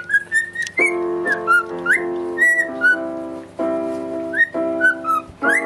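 A cockatiel whistling a tune in short notes that slide up and down. Behind it, held chords on an electronic keyboard change roughly once a second.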